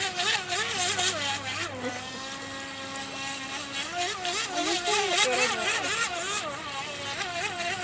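Radio-controlled boat's motor running out on the water, its whine wavering up and down in pitch, with a steadier stretch about two seconds in.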